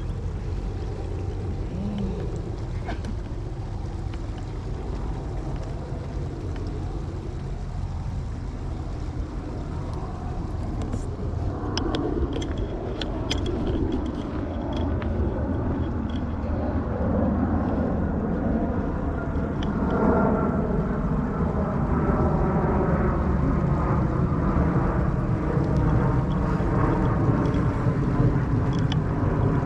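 An airplane flying overhead: a low engine drone that builds up about halfway through and stays loud to the end, with a few light clicks in between.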